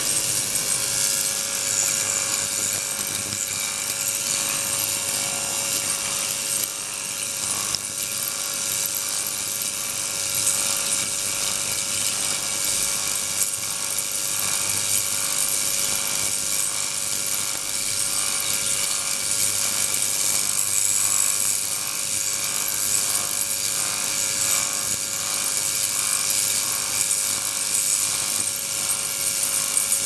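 Ultrasonic transducer running in a beaker of water: a steady hiss with a steady mid-pitched tone through it, from the driven water and its cavitation bubbles.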